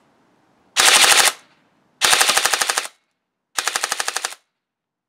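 American Airsoft Factory Wabbe CQC airsoft electric rifle (AEG) firing three short full-auto bursts, each a rapid, even string of shots from the cycling gearbox: one about a second in, one at two seconds and a last, shorter one at about three and a half seconds.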